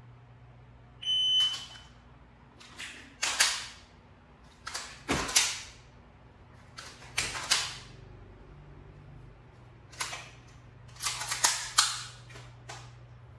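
An electronic beep, like a shot timer's start tone, about a second in, followed by groups of sharp mechanical clicks and clacks from a handgun in dry-fire drills: trigger snaps with no round fired, and slide and magazine handling during reloads.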